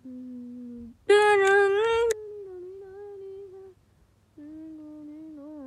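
A person's voice humming long, steady held notes, with a louder, wavering sung note about a second in.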